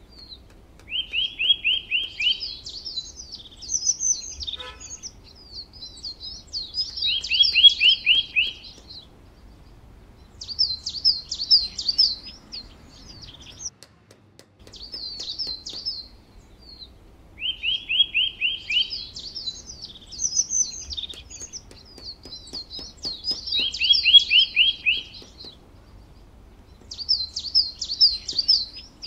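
Small songbirds chirping and singing in repeated bursts of quick chirps and short, fast trills. It is a birdsong recording that loops about every sixteen seconds.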